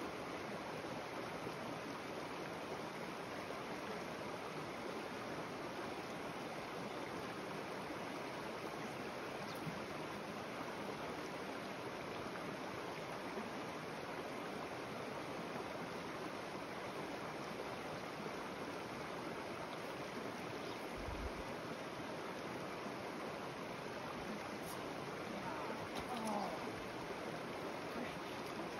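Mountain creek water running steadily over rocks into a pool: an even, unbroken rushing.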